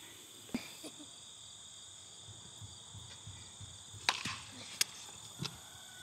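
A bat striking a ball with one sharp crack about four seconds in, followed by a second sharp click less than a second later. A steady high-pitched insect drone runs underneath.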